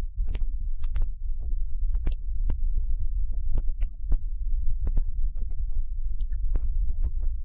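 Strong wind buffeting a microphone: a loud, steady low rumble with scattered crackles.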